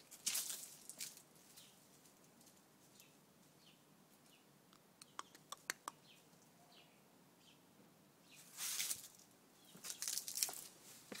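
Faint rustling and crunching of dry leaves underfoot on a garden path. Louder bursts of rustle come near the start and again near the end, with a quick run of short clicks about halfway through.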